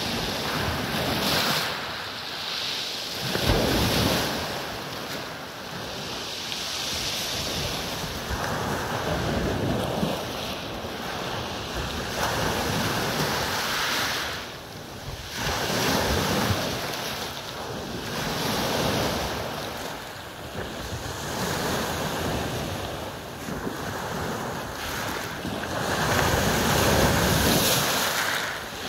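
Small sea waves breaking on a pebble beach and washing back over the stones. The surf swells and eases every few seconds.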